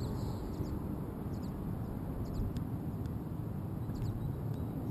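Steady low rumble with no clear pitch, with faint short bird chirps several times, high above it.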